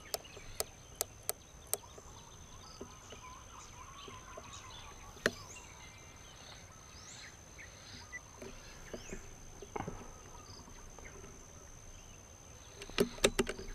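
Rifle-scope elevation turret clicking as it is dialed, five clicks in the first two seconds. After that come faint bird chirps over a steady high tone, a single sharp click about five seconds in, and a quick run of louder clicks near the end.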